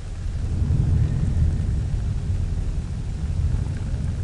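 Low rolling thunder, swelling about a second in and slowly dying away, over a steady hiss of rain.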